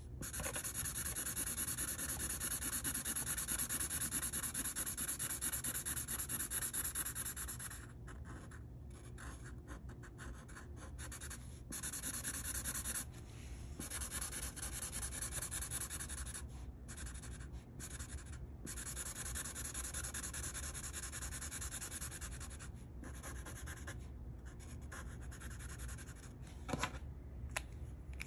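Red fine-point Sharpie permanent marker scratching on paper in quick back-and-forth coloring strokes, with brief pauses where the tip lifts, more often in the second half. A light click near the end.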